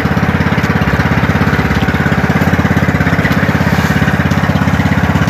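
Small boat engine of an outrigger fishing boat running steadily under way, a fast, even chugging beat.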